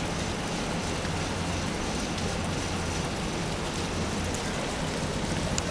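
Steady outdoor ambience: a continuous even rushing hiss with a low steady hum underneath, and no distinct events.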